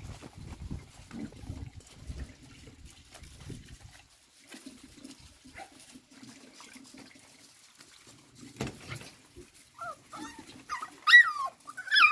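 Cocker spaniel puppy whining in a few short, high cries that bend up and down, starting about two seconds before the end, with faint scuffling earlier.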